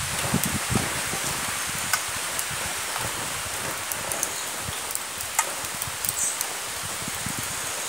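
Newly lit charcoal fire flaring up in a metal pan: a steady rustling hiss of flames with scattered small crackles and pops.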